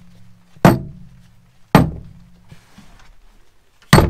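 A cordless impact wrench, a socket and steel bolts set down one after another on a pickup's tailgate: three sharp knocks, the last near the end, each with a short ringing tail.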